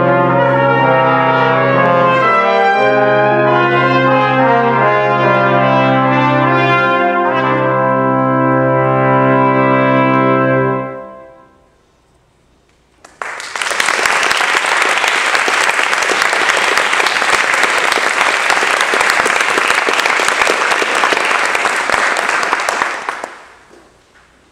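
Brass quintet of two trumpets, French horn, trombone and tuba playing the closing bars of a piece, the tuba holding a low bass note under moving upper parts, the music stopping about eleven seconds in. After a two-second pause, audience applause for about ten seconds, dying away near the end.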